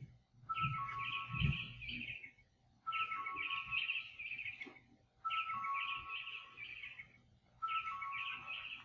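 An electronic chirping ring signal, repeating identically four times, a little over every two seconds: two short steady beeps stepping down in pitch under a fast warbling trill. A faint steady tone runs beneath it, with a couple of dull low thumps near the start.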